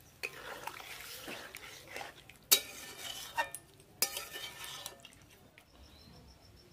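Spatula stirring a watery vegetable curry in a metal kadai, scraping around the pan with several sharp clinks against the metal, the loudest about two and a half seconds in. The stirring stops about five seconds in.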